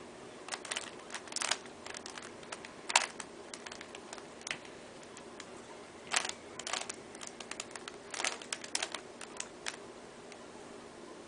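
A loose plastic Rubik's Cube being twisted by hand: irregular clicking and clacking as its layers turn, coming in quick flurries with short pauses between.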